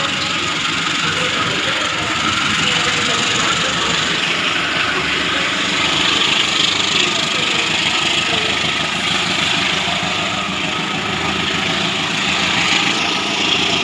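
A large engine running steadily, with an even rushing noise over it.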